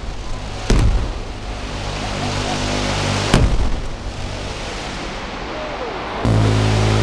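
Sharp, echoing bangs of gunfire, about a second in and again near three and a half seconds, over a steady noisy background. About six seconds in a minigun opens fire, a continuous rapid-fire buzz from its very high rate of fire.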